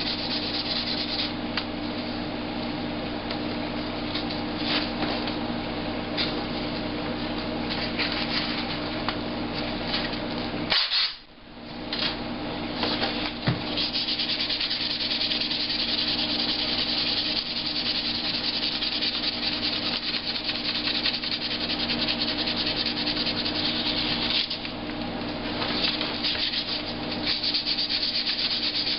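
Sandpaper rubbing back dried putty on a laptop case by hand, in continuous scratchy strokes that stop briefly about eleven seconds in.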